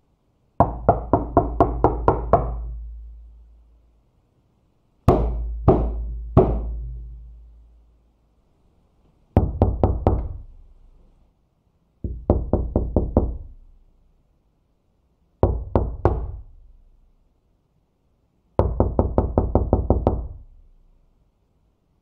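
Knuckles knocking on a door in six separate bouts: a quick run of about eight knocks, three slow knocks, then shorter runs of three to nine knocks. Each bout rings on with a deep boom for a second or two before dying away.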